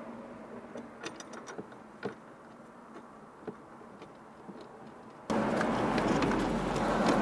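Scattered light plastic clicks and taps from a car's plastic glovebox being handled and fitted back under the dashboard. About five seconds in, a steady, louder rushing noise starts abruptly.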